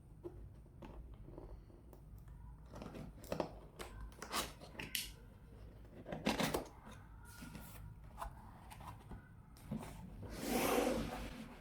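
Laptop packaging being handled and opened: scattered rustles and scrapes, with a longer, louder tearing scrape near the end.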